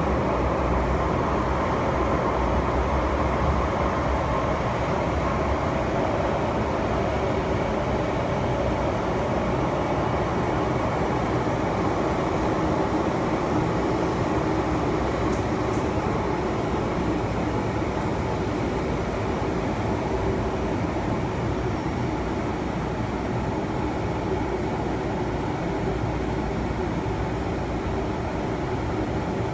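MTR Island Line M-Train running through a tunnel, heard from inside the carriage: a steady rumble of wheels on rail mixed with traction motor hum. The noise eases slightly near the end as the train pulls into the station platform.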